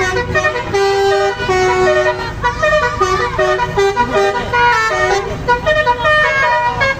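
Indonesian bus 'telolet' multi-tone horn playing a quick melody, several horn tones sounding together and stepping from note to note a few times a second.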